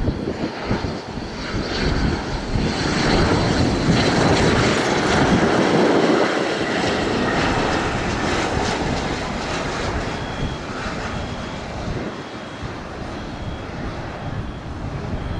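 Cessna 650 Citation III business jet's twin Garrett TFE731 turbofans passing close on landing. The engine noise grows to a peak near the middle, then slowly fades as the jet flares over the runway.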